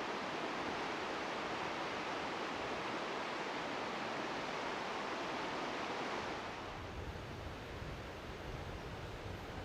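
Steady rush of flowing river water. About six and a half seconds in it turns quieter, with more low rumble underneath.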